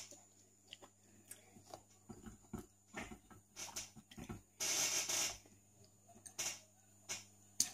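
Eating sounds from soft, creamy durian flesh: wet chewing and mouth sounds, and fingers pulling pulp from the spiky husk. About halfway through comes a louder hiss-like noise lasting under a second.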